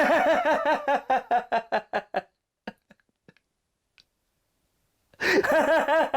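A high voice laughing in a quick run of short 'ha' pulses that fade out over about two seconds, then the same laugh again about five seconds in.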